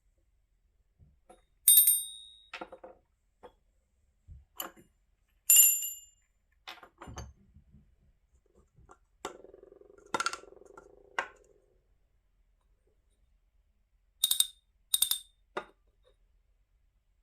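Small metal bells struck one at a time at irregular intervals, each a bright, brief clink with high ringing overtones. About halfway through, a lower-pitched ring sounds for about two seconds.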